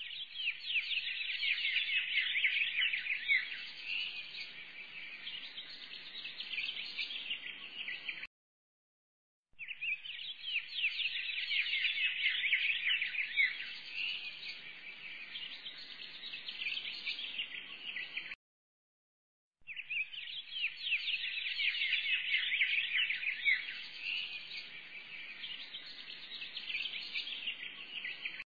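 A looped recording of many small birds chirping rapidly and densely. The same stretch of about nine seconds repeats, each pass cutting off abruptly into about a second of dead silence.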